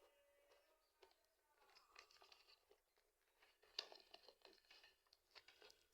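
Faint tearing and crinkling of packing tape and cardboard as a toy box is opened, with scattered small clicks and one sharper click about four seconds in.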